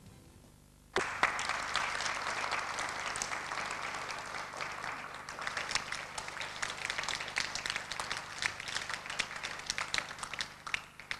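Audience applauding, starting suddenly about a second in and thinning out near the end.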